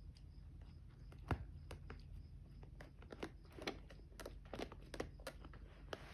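Irregular soft pops and clicks of a silicone pop-it fidget toy as a kitten paws at its bubbles, about ten in a few seconds, the sharpest a little over a second in.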